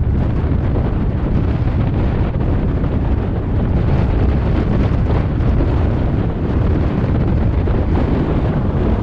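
Heavy wind buffeting the microphone: a loud, steady, rumbling noise with no clear tone or rhythm.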